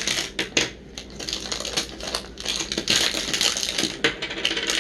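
Small plastic glitter containers being pulled out and handled, clicking and clattering against each other in quick, irregular taps.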